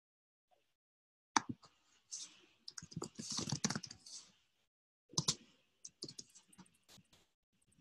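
Typing on a computer keyboard: keystroke clicks, sharpest about a second and a half in, with a rapid flurry around three to four seconds in and another run of keystrokes a little later.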